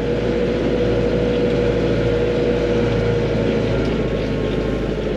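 Arbos 3055 tractor's engine running steadily under load while pulling a disc harrow, heard from inside the cab, with a steady whine over the low engine rumble.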